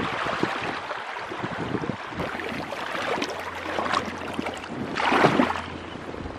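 Shallow river water rushing steadily, with short splashes and one louder splash about five seconds in as a hooked fish is drawn in through the shallows.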